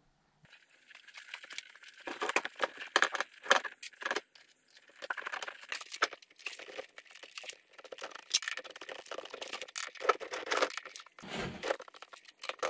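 Irregular clicking, rattling and rustling of hands handling parts on a pickup's bench seat: small metal and plastic trim pieces knocking and scraping together.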